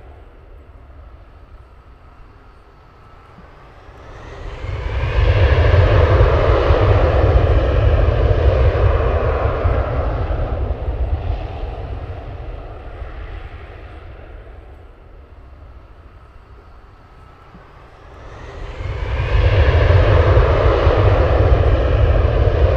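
Jet engines of a four-engine Airbus A380 passing low overhead on landing approach, twice: a loud rumble with a rising whine swells from about four seconds in and fades away by about twelve seconds, then a second pass builds from about eighteen seconds and stays loud to the end.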